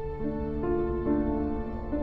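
Slow, gentle background music of sustained chords, with new notes coming in every half second or so.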